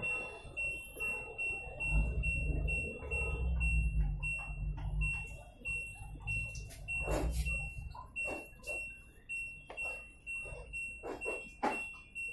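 LG WF-T8019PR top-loading washing machine's control panel beeping: a fast, even run of short beeps at one high pitch while the delay-start button is held, each beep stepping the delay timer up an hour. A low rumble lies under the first half, and a few sharp clicks come in the second half.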